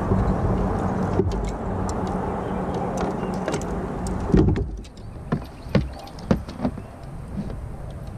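A steady low motor hum that stops about four and a half seconds in, followed by scattered light knocks and clicks.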